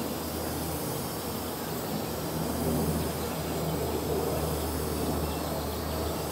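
Aerosol spray can of clear acrylic coating spraying in a steady hiss.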